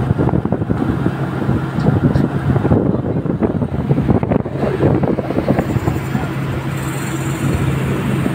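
Heavy drilling-rig machinery running with a steady low hum and irregular rattling over it.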